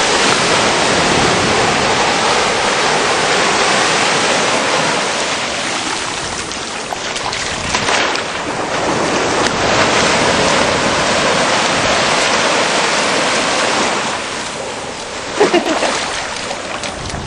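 Sea surf washing ashore: a steady rush of noise that swells and eases over several seconds.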